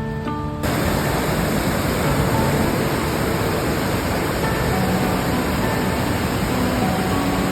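Loud, steady rushing water, most likely from heavy rain or a rain-swollen stream, starting abruptly about half a second in. Faint background music plays underneath.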